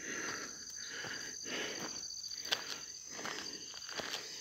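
Footsteps of a hiker on a dirt road, about one step every three-quarters of a second, with a steady high trill of insects.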